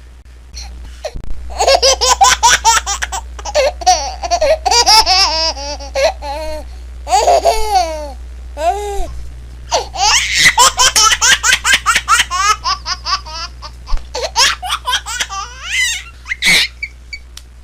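A baby laughing hard in runs of quick, high-pitched laughs broken by short pauses, with a faint steady low hum underneath.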